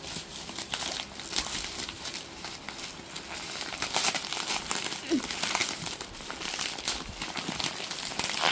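Irregular crinkling and crackling: many short, sharp rustles, as of crinkly material being handled.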